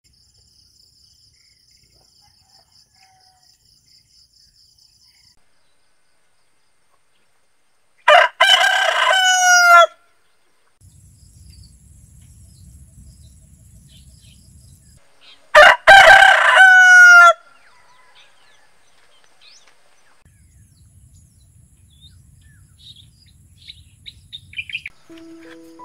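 A rooster crowing twice, about eight seconds apart. Each crow lasts about two seconds, ends on a falling note, and is much the loudest sound. Faint high chirps are heard in the background, most of them near the end.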